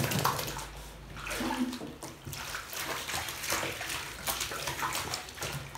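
Water splashing irregularly in a bathtub as a puppy is washed by hand.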